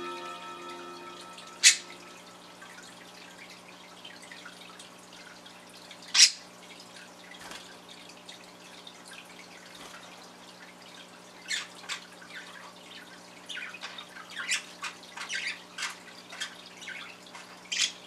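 Budgerigars chirping in their cage: single sharp chirps about two seconds in, around six seconds and near the end, with a stretch of quicker, softer chattering chirps in between. A chiming tone dies away in the first two seconds.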